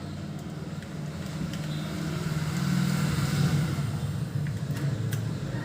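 A motor vehicle's engine running, a low hum that grows louder to its peak a little past the middle and then eases slightly, with a few faint clicks.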